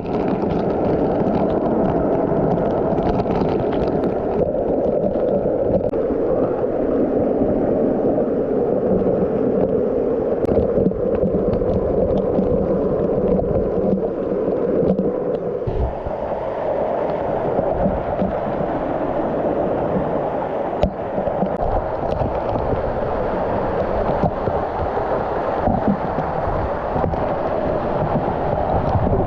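Steady rush of falling water from a big waterfall in a mountain gorge. The tone changes about halfway through, with a few faint knocks over it.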